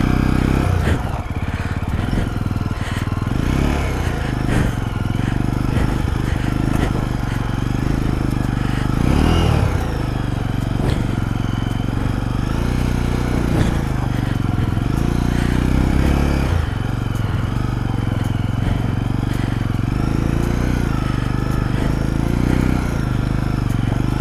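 Jawa 42 motorcycle's single-cylinder engine running on a rough off-road track, its pitch rising and falling as the throttle opens and closes.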